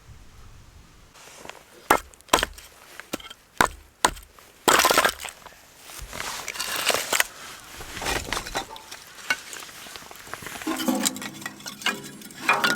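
Irregular sharp knocks and cracks, like wood being broken or handled. Near the end comes a scraping sound with a squealing pitch.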